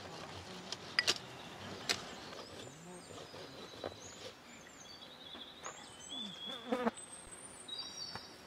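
A silicone basting brush dabbing sauce onto chicken and pepper kebab skewers on a metal tray, with a few sharp taps and clicks. Short high chirps sound throughout in the background.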